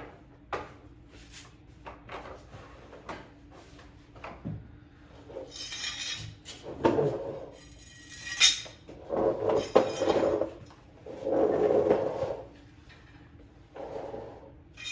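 Metal clanking, knocking and scraping of a mower blade being fitted onto the mower deck, in irregular bouts with a sharp clank about eight and a half seconds in.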